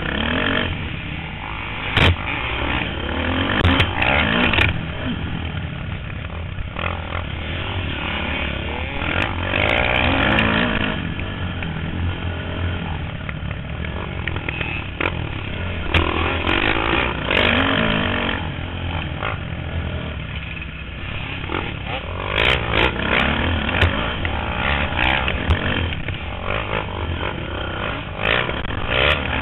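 Dirt bike engine revving up and down as it is ridden hard, picked up by a helmet-mounted camera with wind on the microphone. Sharp knocks come now and then, several of them around the middle and near the end.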